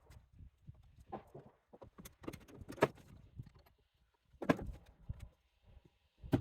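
Scattered metal clinks and knocks of tools and car parts being handled while the electric windshield-wiper assembly is worked out of an old car body. Two louder knocks come about three seconds and four and a half seconds in.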